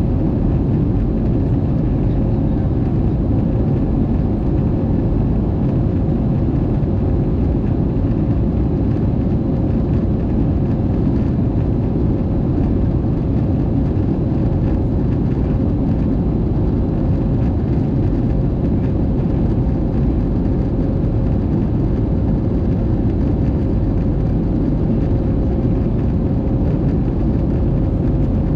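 Airbus A220 cabin noise heard at a window seat beside the wing: the Pratt & Whitney geared turbofan and the airflow make a steady, deep rumble with a faint steady hum, while the jet climbs after takeoff.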